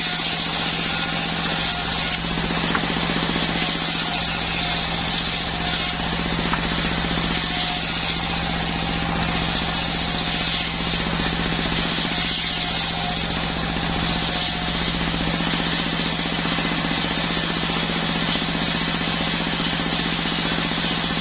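Circular sawmill running steadily while sawing waru wood, with a constant machine hum under it; the higher sawing noise swells and eases every few seconds.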